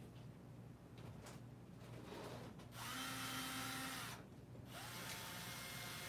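Cordless drill/driver running in two short bursts, a steady motor whine, as it drives a screw into a printer's metal frame; the second burst drops in pitch as it stops near the end.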